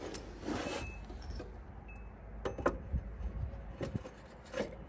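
A few light metal clinks and knocks, about five in the second half, from snowplow shoe hardware being worked into its rusty mount on the plow frame. Clothing rustles near the start, over a low steady rumble.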